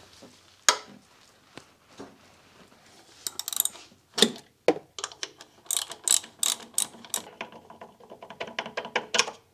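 Ratchet wrench with a 14 mm socket clicking as it backs out an engine torque rod bolt. There are a few scattered clicks at first, then a quick run of clicks, several a second, through the second half.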